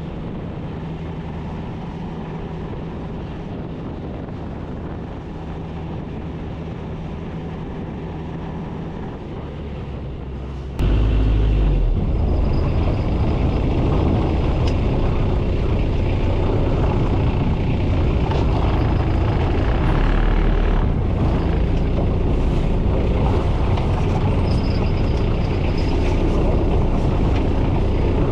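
Boat engine running steadily at low revs with a low hum. About eleven seconds in it suddenly gets much louder and rougher and stays that way, as the engine is opened up.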